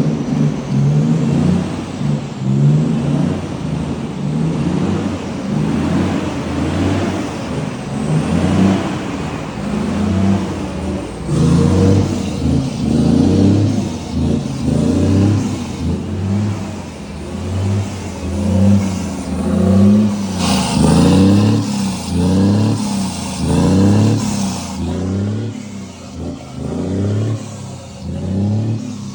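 Scania truck's diesel engine revved again and again through its exhaust, running loud, the note rising and falling in short repeated blips, about one a second in the second half.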